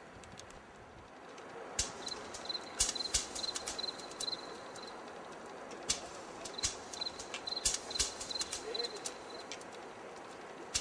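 Loose scree stones clacking and scraping irregularly under boots crossing a rock slope, starting about two seconds in. A short high chirp repeats about three to four times a second through two stretches.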